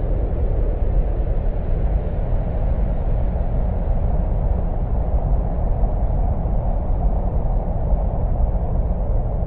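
Sonified space recording: electromagnetic wave data captured by a spacecraft and converted by NASA into audible sound, heard as a steady, deep, unpitched noise.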